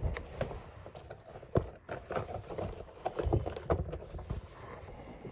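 Shoes and clothes being handled and tossed into a container: a run of irregular thumps and knocks with rustling between them.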